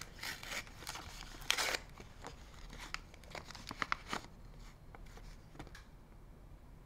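Mahle paper piston-ring envelope being opened and unfolded by hand: crinkling and tearing paper in quick short rustles, loudest about a second and a half in. The rustling fades to faint handling for the last few seconds as the ring is taken out.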